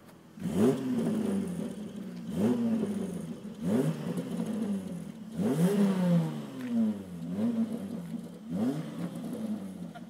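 1998 Toyota Sienna minivan's 3.0-litre V6 revved in about seven quick throttle blips through a custom side-exit exhaust. Each blip rises sharply and falls back to idle.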